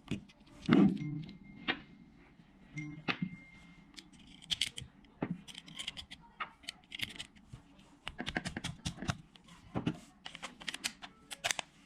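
Grand Power T12 traumatic pistol being handled: a run of sharp mechanical clicks and clacks at an uneven pace, with a heavier thump about a second in.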